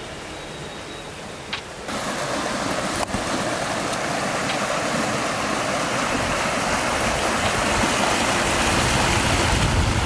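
Stream water rushing over rocks in small rapids, a steady rush that starts abruptly about two seconds in and grows slightly louder.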